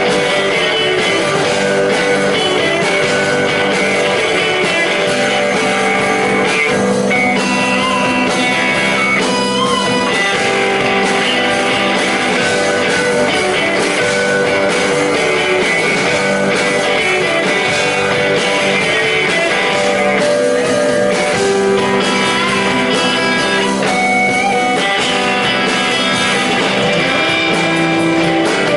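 Band playing live, led by electric guitar, with sustained guitar notes over a steady, dense texture.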